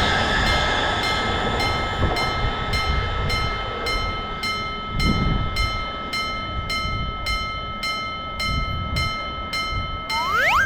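Japanese railroad crossing alarm ringing its steady, even clang about twice a second over the rumble of a passing electric train. Near the end a repeating rising whistle-like sound effect starts.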